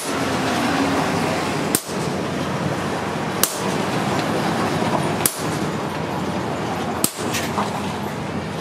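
Hammer blows on a handled top tool pressed onto a red-hot axe head on an anvil post: sharp metal-on-metal strikes about every second and a half to two seconds, two of them close together near the end, over a steady background noise.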